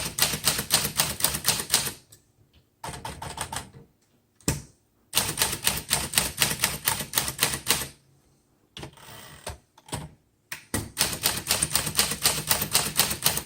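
Keys of a 1947 Smith Corona Sterling manual typewriter struck in quick runs, the type bars clacking against the paper. The typing comes in several bursts of a second or three, with short pauses between.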